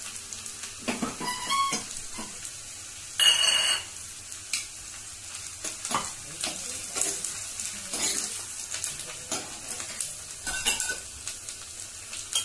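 Chopped onion sizzling and frying in hot desi ghee in a small tadka pan, stirred with a spoon that scrapes the pan now and then. One louder, ringing scrape comes about three seconds in.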